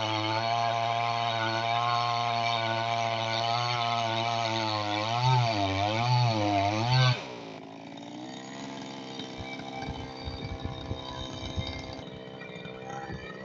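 Chainsaw running at high speed, its pitch wavering up and down for the last couple of seconds as it works. About seven seconds in it drops away to a much quieter running with scattered knocks.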